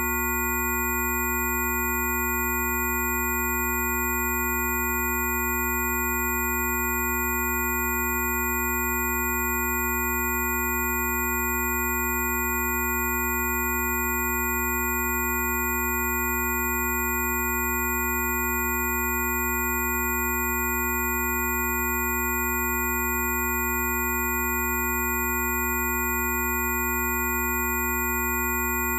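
Several steady pure electronic tones sounding together as one unchanging drone, over a deep steady hum.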